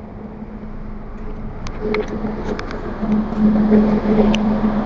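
Dubai Metro train standing at the platform, giving a steady hum that grows louder about three seconds in as its doors open. A few light clicks and steps come as passengers board.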